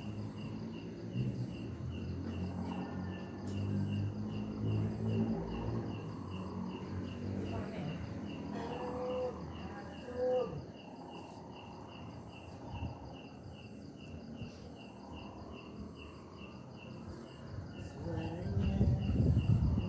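A cricket chirping steadily, about two chirps a second, over low murmuring voices.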